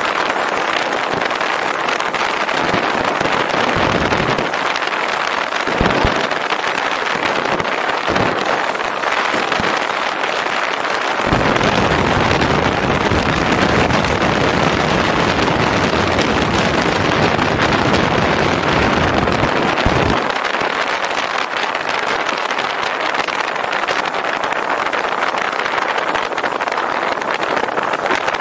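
Wind rushing over the microphone and road noise from a motorcycle riding at speed. The rush is steady, with heavier low buffeting from about eleven to twenty seconds in.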